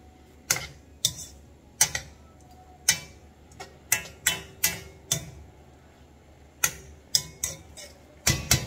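Metal ladle knocking and scraping against a wok while stirring bean sprouts and carrots, in irregular sharp taps that bunch closer together near the end.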